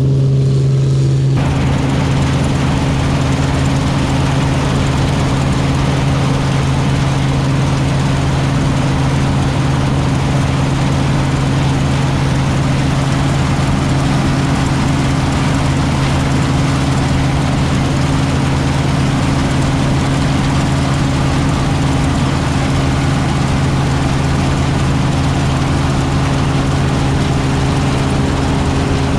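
Claas Dominator 85 combine harvester running steadily: a constant engine hum under a dense, even rush of machinery noise that comes in about a second in and holds.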